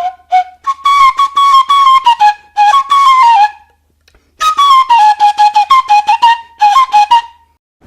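Flute playing a melody of quick, short notes in two phrases, each phrase stepping down in pitch toward its end, with a brief pause between them.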